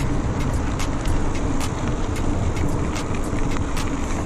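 Motorcycle under way: steady wind and road noise over a low engine hum, broken by many brief crackles of wind hitting the microphone.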